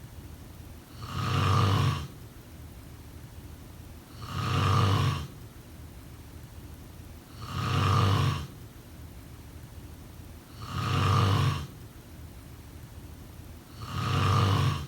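A person snoring: five snores, one about every three seconds, each lasting about a second.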